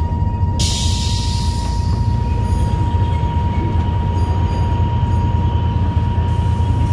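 Passenger train rolling slowly along a station platform, heard from inside the carriage: a steady low rumble with a constant thin high whine, and a burst of hiss about a second in.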